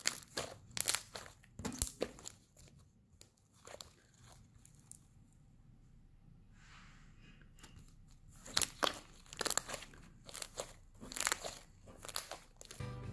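Stretchy green slime squeezed and kneaded in the hands, making sticky crackling, popping clicks in quick runs, with a quieter moment in the middle while it is pulled out and stretched.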